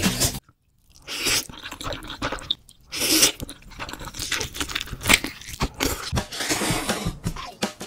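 Close-miked eating sounds: slurping of spicy instant noodles and wet chewing with crunchy bites, in irregular bursts after a brief silence.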